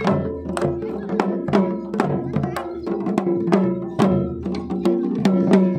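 Traditional Himachali procession music: drums beaten in a quick steady rhythm of about three strikes a second, over held wind-instrument notes.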